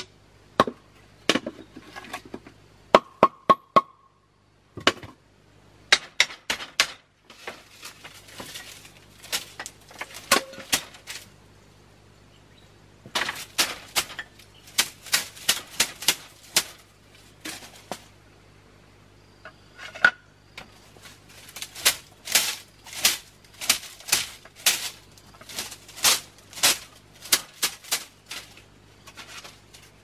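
Sharp clicks and light knocks of bamboo and wood being handled, coming in irregular clusters, some with a short hollow ring, over a faint steady low hum.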